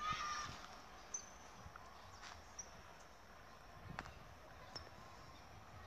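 Faint rural ambience with short, high bird chirps every second or two, a short warbling sound right at the start and a couple of faint clicks.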